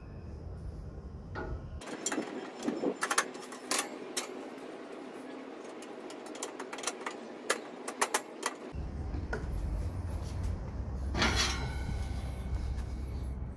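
Black metal side-rail panels of a grill and fire-pit frame clicking and knocking as they are handled and fitted into the corner posts of the base. There is a longer, louder rattle near the end, over a low steady rumble.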